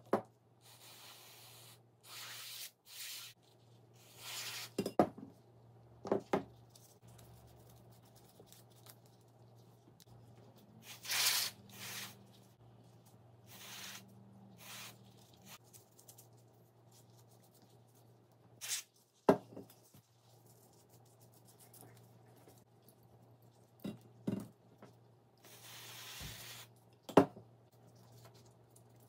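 Tools and small parts handled on a workbench: scattered sharp clicks and knocks, with several short bursts of hiss or rubbing, over a low steady hum.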